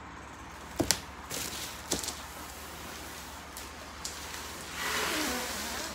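A large bubble-wrapped cardboard package being handled: two sharp knocks about one and two seconds in, and plastic rustling that swells near the end.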